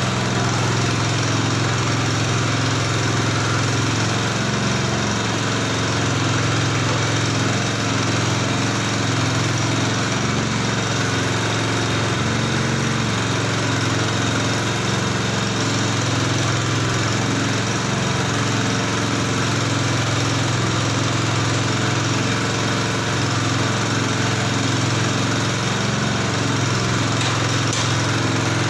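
Motor of a homemade peanut frying and oil-draining machine running steadily with an even, unbroken hum.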